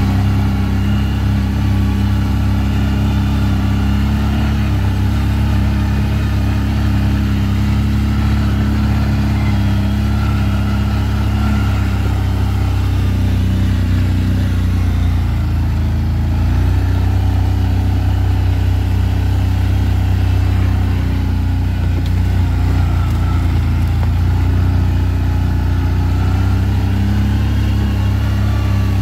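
ATV engine running steadily under way, its note shifting slightly in pitch about halfway through.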